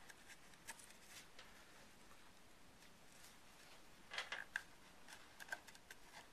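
Faint rustling and a few light clicks of hands working tape around balsa wood strips and cardstock, with the densest cluster about four seconds in.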